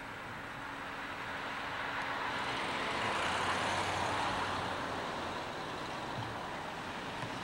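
1971 Ford Mustang Mach 1 driving past, its engine and tyre noise swelling to a peak about three to four seconds in, then easing off.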